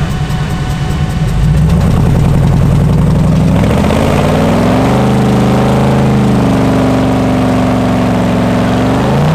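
Swapped L83 5.3-litre V8 in a Mazda sedan idling with a pulsing beat at the drag-strip starting line. About four seconds in the revs rise and are held steady, brought up against the tight torque converter before launch. The revs climb again right at the end.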